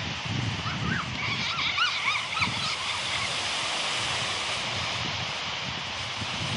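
Small waves breaking and washing up a sandy lake beach, with wind buffeting the microphone. A quick run of short, high chirping calls comes in between about one and three seconds in.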